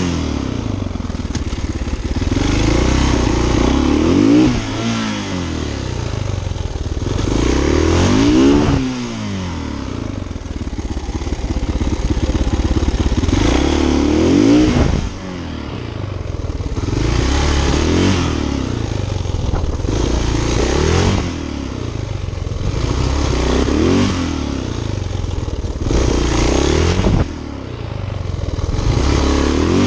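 Husqvarna SM570R supermoto's single-cylinder four-stroke engine heard from on board, revving up in pitch on each burst of throttle and dropping off sharply when the throttle is shut, again and again every few seconds.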